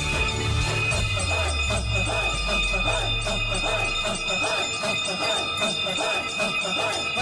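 Brass hand bells ringing continuously in a rapid, steady rhythm, with devotional music underneath.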